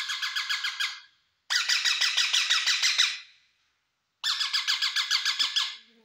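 Indian ringneck parakeet calling in three quick bursts of rapid, high-pitched repeated calls, about ten a second, with short silences between the bursts.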